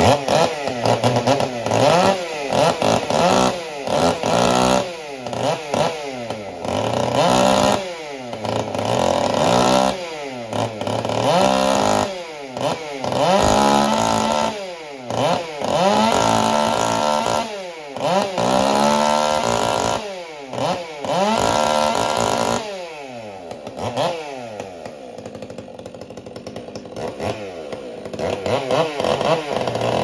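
Large two-stroke chainsaw with a 24-inch bar, its engine revving up and falling back again and again about every second or two. Late on it drops to a quieter, lower run for several seconds, then revs up again at the very end.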